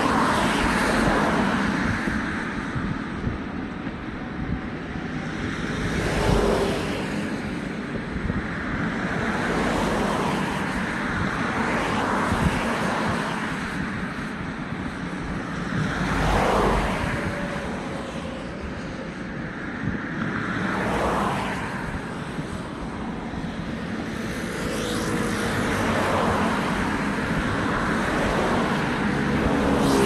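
Road traffic: cars passing one after another, each swelling up and fading away every few seconds over a steady traffic hiss.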